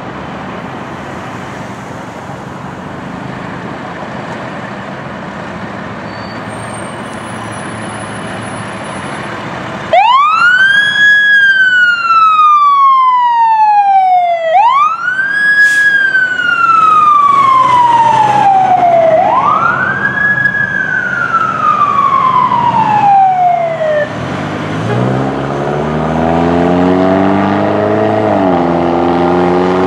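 2009 Pierce Arrow XT fire engine on an emergency response: a steady low rumble, then a loud siren starts about a third of the way in and wails three times, each sweep rising quickly and falling slowly. After the siren stops, the diesel engine is heard accelerating away, its pitch rising, dipping at a gear change and rising again.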